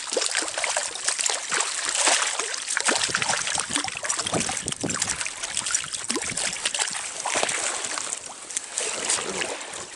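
Water splashing and sloshing in a dense, irregular run of small splashes that starts abruptly.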